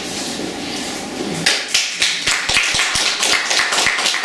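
Small audience applauding, starting about a second and a half in, with separate hand claps easy to pick out.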